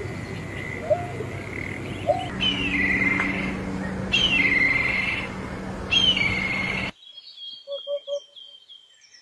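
A run of three bird species. First a greater painted-snipe gives short rising notes. Then a black kite's whinnying call, a descending quavering whistle, comes three times. Near the end a Eurasian hoopoe gives its soft low 'hoop-hoop-hoop' once.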